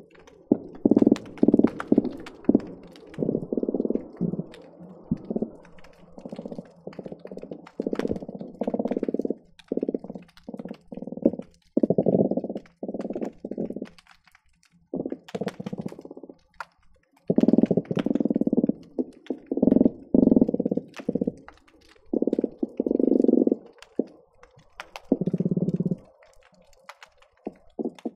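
Croakers calling underwater, picked up on hydrophones: a busy series of low croaking bursts, many close together or overlapping, with sharp clicks scattered between them.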